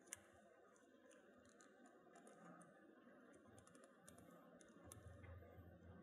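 Very faint, scattered metallic ticks of a thin Euro-profile hook pick working the pin stack inside a Yale Y221 padlock's keyway, with one sharper click about a tenth of a second in. The pins are being probed under very light tension to feel for counter-rotation of spool pins.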